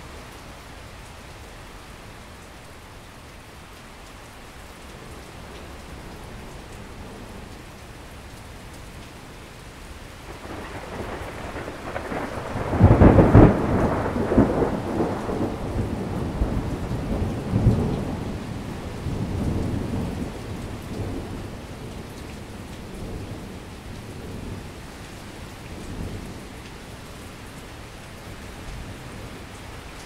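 Steady rain with a rolling thunderclap. The thunder builds about ten seconds in and peaks a few seconds later in a loud crack. It then rumbles on in several swells that die away over the next dozen seconds, leaving the rain.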